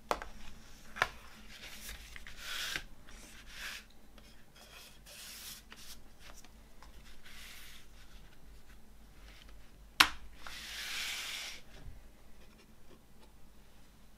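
Handling of a cardboard CD digipak: card sliding and rubbing as it is turned and its panels unfolded, with sharp clicks near the start. A louder click about ten seconds in, followed by a longer rubbing swish, is a disc being popped off its plastic tray hub.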